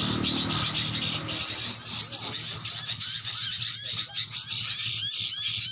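Many small birds chirping together: a dense chorus of quick, high, sliding chirps, several a second, thickening after about a second and a half, over a steady low hum.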